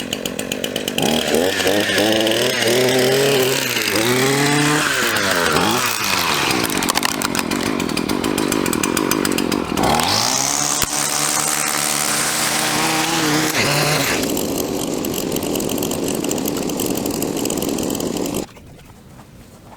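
Small two-stroke engine of handheld lawn equipment running hard, its speed swinging up and down twice, then stopping abruptly near the end.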